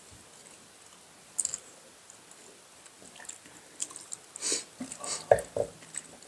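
Quiet mealtime sounds: chewing, then a scatter of small clicks and knocks of utensils and a glass on a wooden table in the second half.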